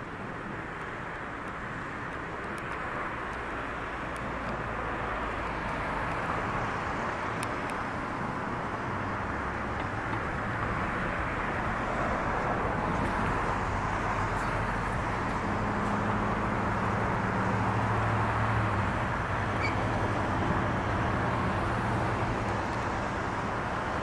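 Steady road traffic noise, with a vehicle's low engine hum growing louder through the middle and easing off near the end.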